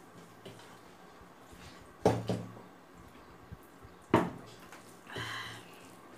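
Plastic drinking cup set down on a table with a sharp knock about four seconds in, after two lighter knocks about two seconds in, followed by a short mouth noise of eating.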